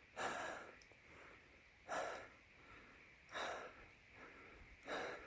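A hiker breathing hard while climbing a steep trail: four heavy breaths, about one every second and a half.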